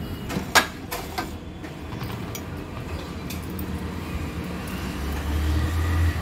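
A steel spoon knocks against a metal pot a few times in the first second and a half, then hands rub and mix a crumbly semolina, ghee and sugar mixture. A low rumble builds over the last second or so.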